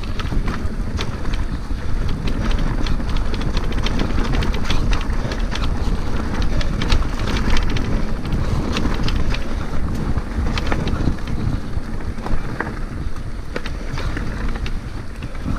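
Wind buffeting a helmet-mounted action camera's microphone while riding an electric mountain bike over rough trail, with frequent sharp clicks and rattles from the bike over the ground.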